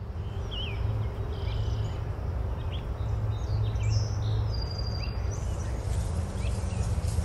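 Small birds chirping now and then, short high calls, over a steady low outdoor rumble like wind on the microphone.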